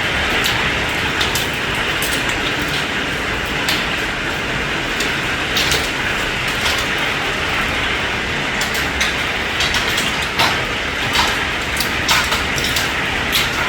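Hailstorm: heavy rain with hailstones striking hard surfaces in scattered sharp cracks at irregular intervals.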